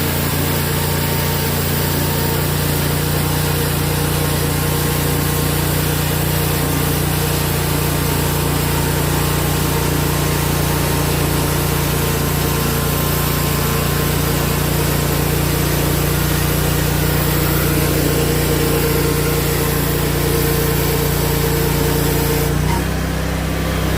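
Portable band sawmill's small gasoline engine running steadily at working speed; its note shifts slightly near the end.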